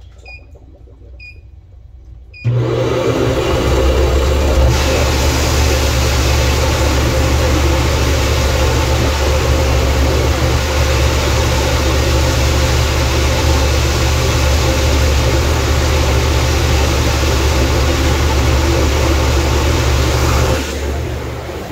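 Electric water pump motor switching on about two and a half seconds in and running with a steady low hum, a rushing noise rising over it a couple of seconds later. The sound drops back sharply shortly before the end.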